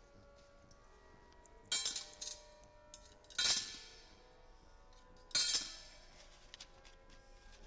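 Soft background music of held notes, broken by three loud, sharp ringing strikes about two seconds apart.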